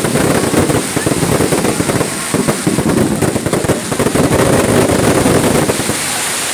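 Fireworks launching and bursting at close range: a dense, continuous crackle of rapid pops and bangs.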